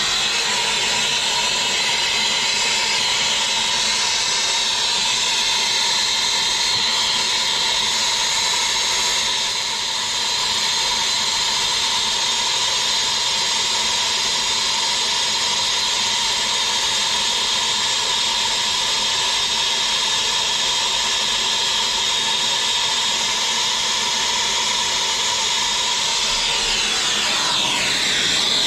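Handheld brazing torch burning with a steady hiss while it heats a copper pipe coupling for brazing, the level dipping briefly about ten seconds in.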